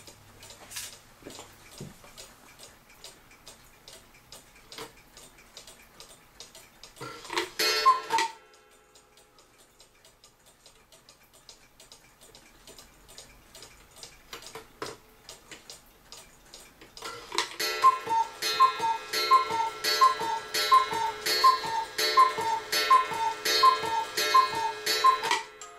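Mechanical cuckoo clock ticking steadily. About seven seconds in it gives a brief two-note cuckoo call. From about eighteen seconds the cuckoo calls over and over in a quick series as the clock strikes the hour, its freshly cleaned and oiled movement working.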